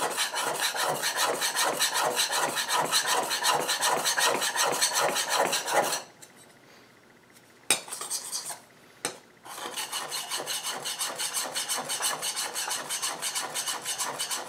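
Steel plane iron being honed freehand on an oil stone: rapid, even back-and-forth scraping strokes, about four a second. About six seconds in the strokes stop for a few seconds, with a couple of light knocks, then start again.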